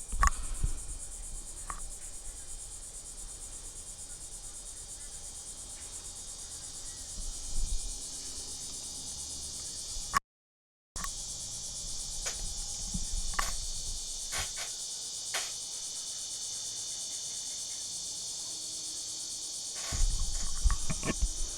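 Insects chirring steadily in a high, even chorus, with a few faint knocks and low rumbles. The sound drops out completely for under a second about ten seconds in.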